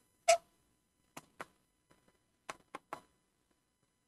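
Pen or stylus tapping on the glass of an interactive touchscreen board during handwriting: six short taps, the first the loudest, the rest in two quick groups.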